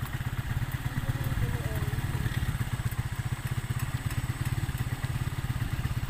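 Motorcycle engine running steadily while riding along, heard from on board as a fast, even throb.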